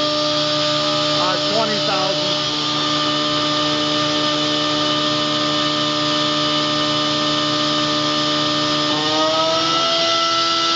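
Spindle of a Kitamura MyCenter 2X-if CNC vertical machining center running at high speed, around 18,000 RPM, with a steady whine of several tones over a hiss. About nine seconds in, the pitch rises and settles higher as the spindle speeds up.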